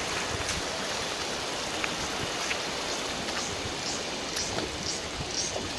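Shallow river water rushing over flat rock ledges in a steady wash, with a few faint clicks.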